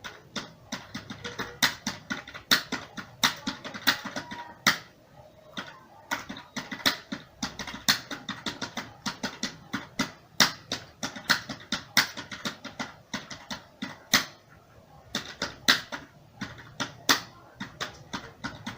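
Typing on a computer keyboard at about 45 words per minute: irregular key clicks, several a second, with a couple of short pauses.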